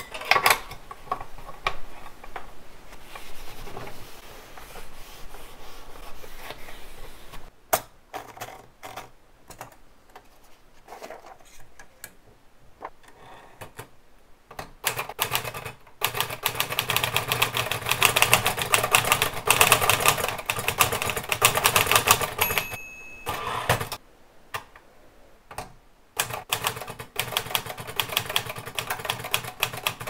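Olivetti Lettera 22 manual portable typewriter: scattered clicks and knocks of handling and paper feeding in the first half, then rapid typing of a test line. The carriage bell dings once a little past the middle, and after a short pause the typing starts again near the end.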